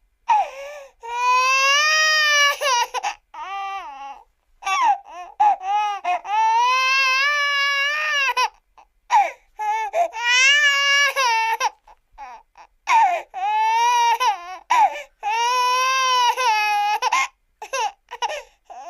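Cartoon crying sound effect: a high-pitched voice wailing in long, wavering cries of a second or two, broken by short choppy sobs between them.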